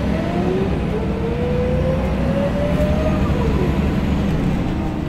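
Scania L94UB bus's diesel engine and driveline heard from inside the saloon, a steady low drone under a whine that rises in pitch as the bus accelerates and drops away a little after three seconds in.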